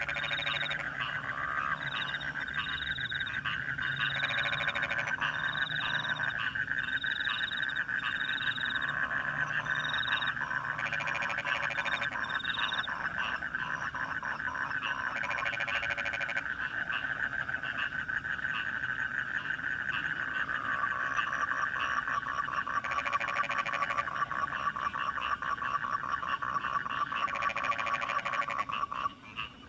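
A chorus of rice-paddy frogs and crickets calling at night: a steady, dense trilling with short repeated high notes, broken every five or six seconds by a louder rattling frog croak lasting a second or two. The chorus drops sharply just before the end.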